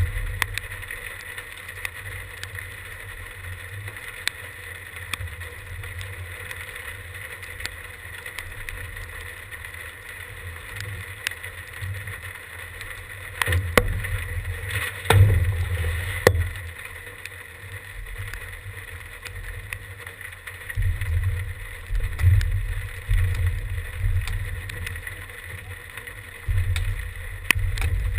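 Wind buffeting the microphone in gusts, with a cluster of sharp knocks about halfway through and faint scattered ticks.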